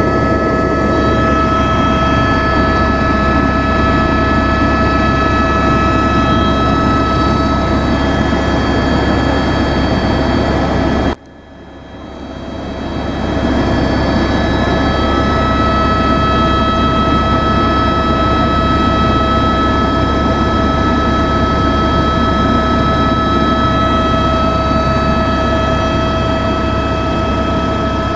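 Helicopter cabin noise in flight: a loud, steady low drone and rushing air with several steady high-pitched whines on top. About eleven seconds in the sound cuts out abruptly and fades back up over a couple of seconds.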